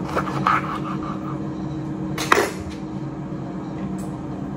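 A knife cutting lemon slices on a ceramic plate: light scraping and clicks, then one sharp knock about two seconds in, over a steady low hum.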